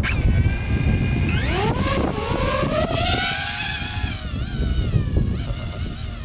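DJI FPV drone's motors and propellers spinning up to a steady whine, then rising sharply in pitch as it lifts off, the whine wavering up and down and fading as it climbs away. A heavy low rumble runs underneath.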